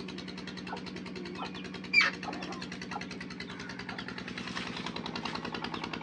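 Scattered short bird chirps and whistles, with one sharp, loud bird call about two seconds in, over a steady engine-like hum.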